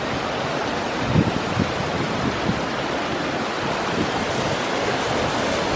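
Waterfall: a steady rush of falling water, with now and then a low rumble of wind on the microphone.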